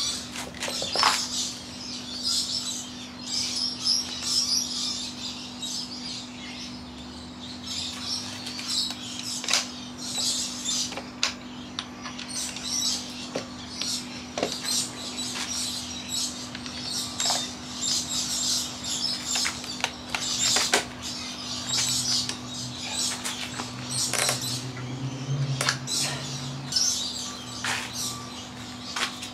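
Birds chirping over the steady hum of an air-conditioning unit, with scattered short clicks and knocks as the folded electric scooter's stem is handled and raised.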